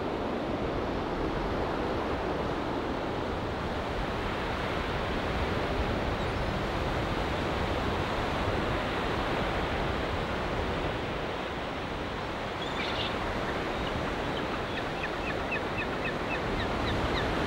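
Surf washing and breaking on a sandy beach, with wind on the microphone, steady throughout. Near the end comes a quick run of short, high bird calls.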